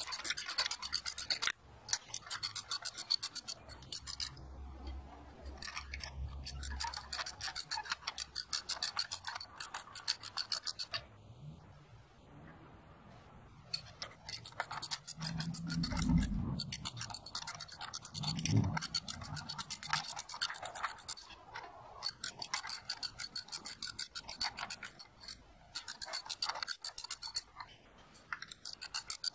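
Socket ratchet clicking in runs of a few seconds as 10 mm bolts are backed out of a motorcycle engine's valve cover. There are two dull knocks about halfway through.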